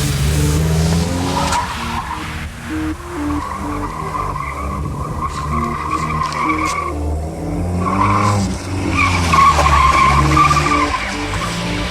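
Tigra's engine running with its tyres squealing and skidding in spells; the squeal drops out for about a second just past the middle.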